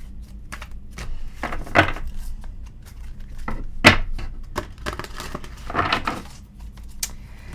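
A deck of tarot cards being shuffled and handled by hand: a run of short rustles and snaps, the loudest about every two seconds.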